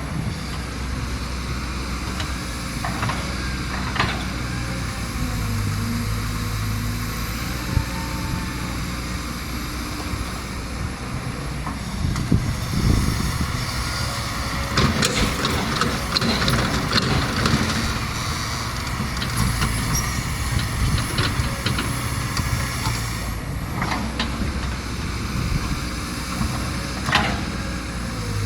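Kobelco SK200 hydraulic excavator working, its diesel engine running steadily under a gliding hydraulic whine. About halfway through there is a stretch of louder rumbling and clattering, with a few sharp knocks elsewhere.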